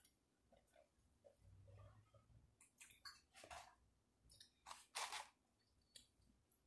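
Faint mouth sounds of a person eating and drinking: chewing and swallowing, with a few short, soft, noisy sounds, the loudest about five seconds in.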